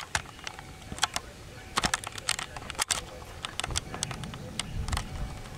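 Outdoor wind buffeting the microphone as a low, uneven rumble that builds about four seconds in, with scattered sharp clicks and taps throughout.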